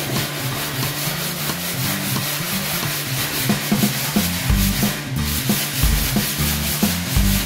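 Hand sanding wood with sandpaper, back-and-forth rubbing strokes, over background music with a bass line; a drum beat comes in about halfway.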